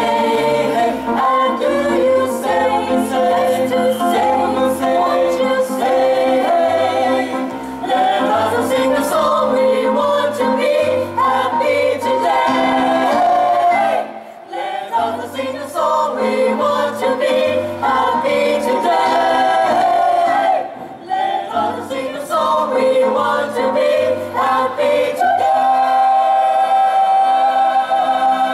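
Mixed choir of men's and women's voices singing in harmony, with two short breaks between phrases, ending on a long held chord that cuts off at the end.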